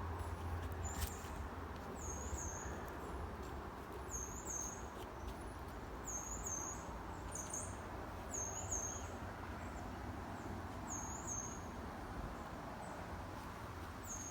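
A bird calling over and over: a short, very high two-note chirp every second or two, over a steady low outdoor rumble.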